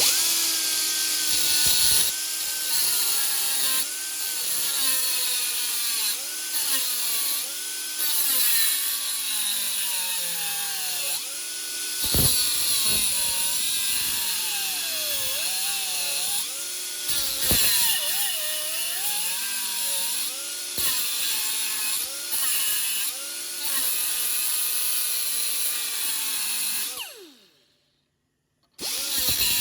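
A power cutting tool grinding through the old wheel bearing's race pressed on the hub, its whine sagging and recovering in pitch as it bites under load. Near the end it is switched off and winds down, then starts up again.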